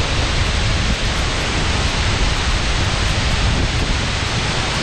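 Waterfall, a loud steady rush of falling water with no breaks.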